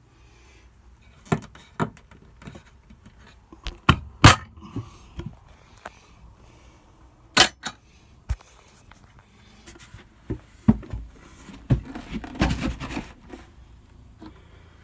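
Cabin drawers, cupboard doors and panels being handled by hand: a string of sharp knocks and clacks, the loudest about four seconds in, another about seven seconds in, and a run of them near the end.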